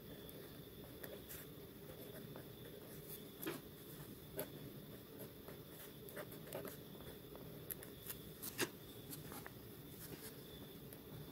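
A pen nib scratching on paper in short, irregular strokes as letters are written out by hand, over a faint steady hum.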